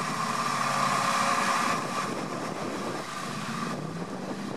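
GAZ-66 army truck's V8 engine running under load as the truck pushes through swamp, with a steady whine that eases and drops in level about two seconds in.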